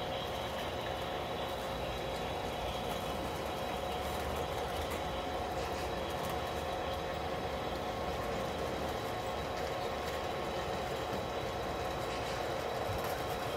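A model steam locomotive and its passenger cars running along the layout track, making a steady whir and hum with a few high, even whining tones and no change in pace.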